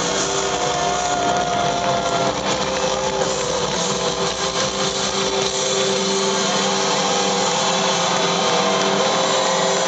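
Live heavy metal band playing loud with heavily distorted guitars, holding long sustained notes over a dense wash of sound.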